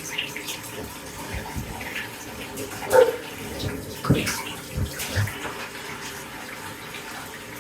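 Bath tap running into a bathtub, a steady rush of water, with a couple of brief louder sounds about three and four seconds in.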